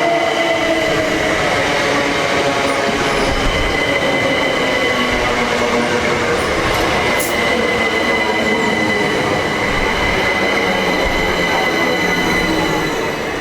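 Class 377 Electrostar electric multiple unit running at the platform. It makes a steady, loud rumble and rail noise. Its motor whine falls slowly in pitch, and a high squeal holds steady over it.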